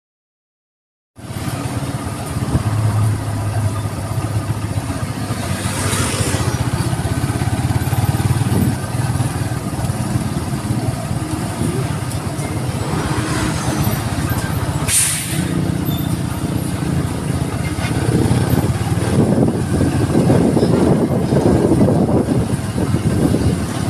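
About a second of silence, then a motor vehicle's engine running with road noise as it drives along a street, with brief sharp noises about six and fifteen seconds in.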